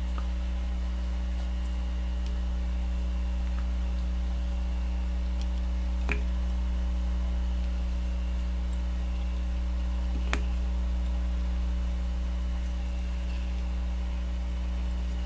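Steady electrical mains hum, with two faint small ticks about six and ten seconds in.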